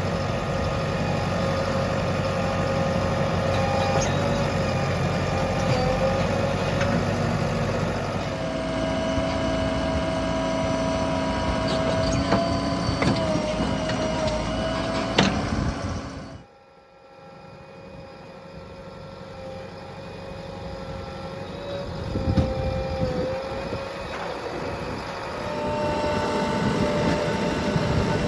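Diesel engines of a JCB 3DX backhoe loader and a tractor running while the loader works, their pitch shifting a few times. The sound drops away abruptly about halfway through, then builds back up.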